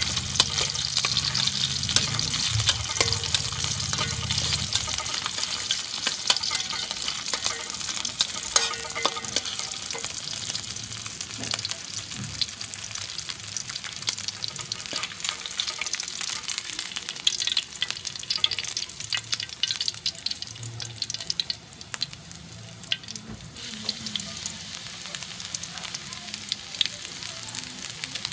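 Chopped garlic sizzling in hot oil in a wok, with a metal spatula scraping and clicking against the pan as it is stirred. A low hum sounds for the first few seconds.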